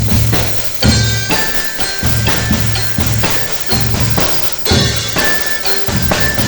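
Drum band playing: heavy, repeated drum beats with sharp strikes and short, bell-like ringing notes over them.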